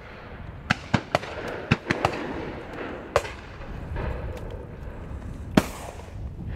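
Shotguns firing along a line of guns at driven game: a quick run of shots in the first couple of seconds, a few more spaced out, and one much louder close shot about five and a half seconds in. A low wind rumble lies under the shots.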